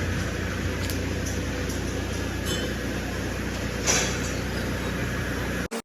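Diesel engine of a mobile crane running steadily, with a few sharp metallic clinks, the loudest about four seconds in.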